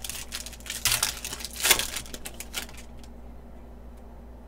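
Foil wrapper of a basketball trading card pack being torn open and crinkled by hand, a run of crackling rips for about three seconds, the loudest near the middle, then it stops.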